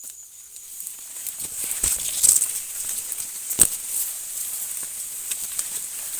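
Dry cornfield leaves and stalks rustling and crackling underfoot as someone pushes through, with a couple of sharper knocks and a steady high-pitched hiss behind.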